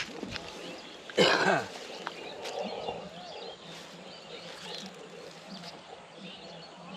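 Outdoor rural ambience with birds chirping on and off. About a second in there is one short, loud call that falls in pitch.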